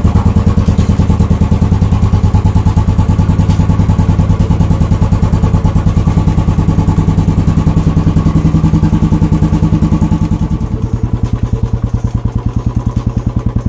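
Royal Enfield Bullet's single-cylinder engine idling just after starting, being warmed up, with a steady even beat. About eleven seconds in it becomes quieter and lighter.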